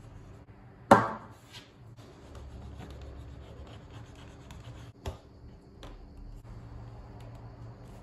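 Hands handling a leather knife sheath and its fittings, with soft rubbing of leather. One sharp knock with a brief ring about a second in, and a smaller click about five seconds in.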